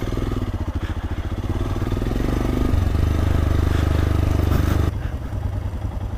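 Motorcycle engine running at low revs with an even chugging beat. It pulls harder through the middle and eases off about five seconds in.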